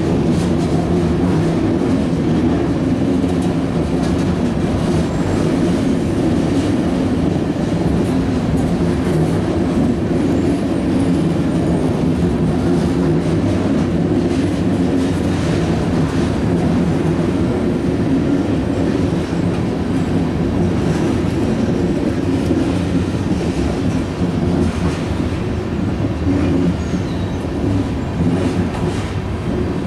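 Loaded freight tank cars rolling steadily past. Their steel wheels make a continuous rumble and clatter on the rails.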